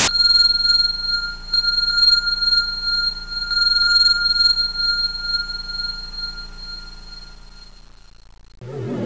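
A steady high-pitched ringing tone over a low hum, wavering in loudness and slowly fading away over about eight seconds. Music comes back in just before the end.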